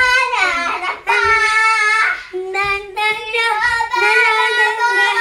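A child singing loud, long held high notes, with short breaks between phrases.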